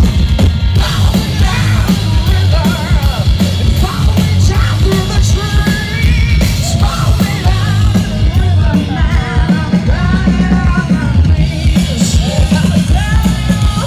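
Hard rock band playing live through a big PA, with drums, bass and electric guitars loud and dense, and a woman's lead vocal singing and shouting over them.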